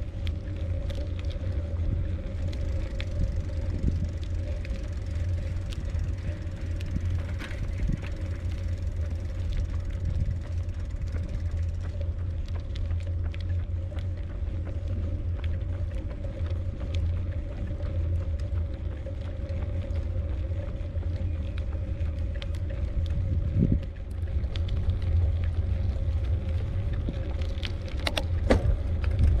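Bicycle being ridden, with wind buffeting the microphone as a steady low rumble, a constant faint hum, and scattered small clicks and rattles, a few sharper ones near the end.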